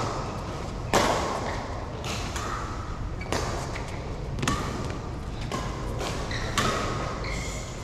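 Badminton rally: rackets striking a shuttlecock, about five sharp hits spaced roughly a second apart, echoing in a large hall.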